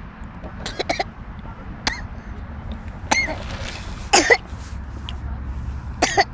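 A toddler coughing and clearing his throat, about five short coughs spread over several seconds.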